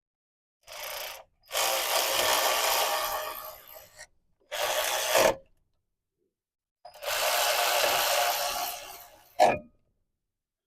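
Ratchet wrench tightening the brake caliper bolts in four runs, the second and fourth about two and a half seconds each, the last two ending with a short sharp knock.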